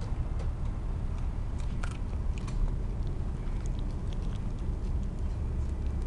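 Corgi puppy chewing and biting watermelon rind: irregular wet crunches and clicks.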